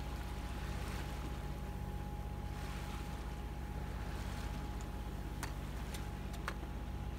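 A sailing yacht's engine running steadily while motoring through calm water, with a faint steady whine above it. A few light clicks come in the second half.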